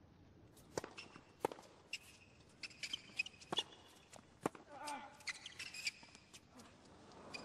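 Tennis rally on a hard court: a serve struck, then several sharp pops of racket strikes and ball bounces, about one every half second to second, with short shoe squeaks on the court surface. A brief voice-like sound comes about two thirds of the way in.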